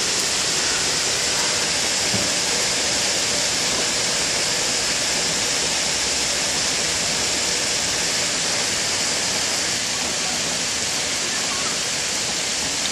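Steady rain pouring down, a dense even hiss that does not let up.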